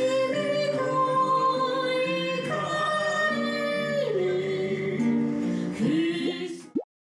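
Man and woman singing a held-note ending in harmony to acoustic guitar accompaniment. The notes change in slow steps and the music stops shortly before the end, followed by a quick rising pop.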